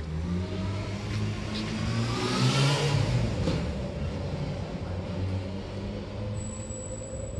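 A motor vehicle's engine rising in pitch as it accelerates past, loudest about three seconds in, then a steady low hum.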